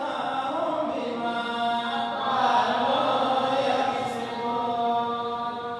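Chanted Quranic recitation in long, held melodic notes that shift in pitch, louder around the middle.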